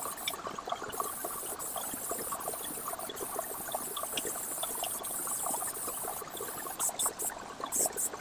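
Airbrush spraying paint with a steady high hiss of air, breaking off briefly twice, about half a second in and near the end.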